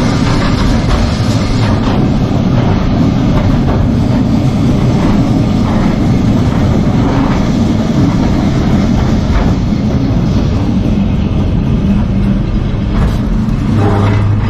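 Lisbon electric tram running along the rails: a steady rumble with occasional clicks from the track, and a low steady hum coming in near the end.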